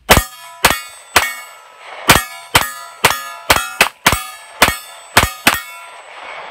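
Two handguns, a Glock 26 and a Remington RM380, firing about a dozen shots in quick, uneven succession at a steel target, with a metallic ringing hanging after the shots. The firing stops about a second before the end.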